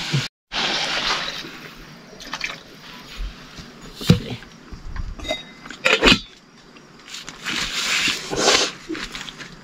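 Water splashing and pouring in short gushes, with a few sharp clinks and knocks of dishes or pots.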